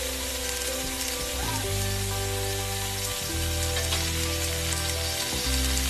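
Battered vegetable slices deep-frying in a steel wok, the oil sizzling with a steady hiss. Background music with held low notes plays over it.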